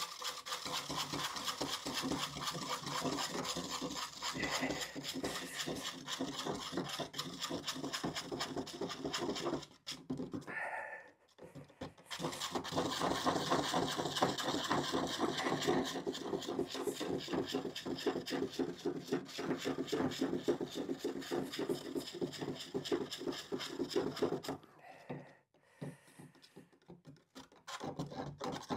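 Old paint being stirred in its tin, a stirrer scraping and churning round the inside in long runs of rapid strokes to mix back paint that has sat for a long time. The stirring stops briefly about ten seconds in and again near the end.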